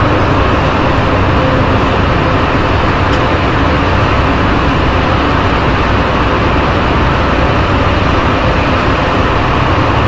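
An NS-93 rubber-tyred metro train running at speed through a tunnel, heard from inside the car as a loud, steady rumble and rush with a deep hum.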